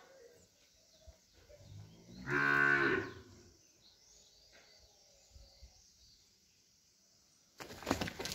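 A heifer in a difficult calving moos once, a single moan of just under a second about two seconds in: a sign of her distress in labour. Near the end comes a rough burst of sharp, clattering noise.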